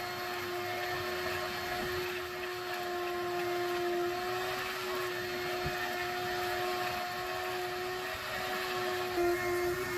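Vacuum cleaner motor running steadily, cleaning up broken window glass. Its pitch dips briefly near the end.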